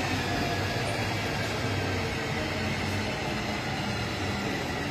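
Steady engine drone with an even low hum and a faint high whine, holding constant throughout.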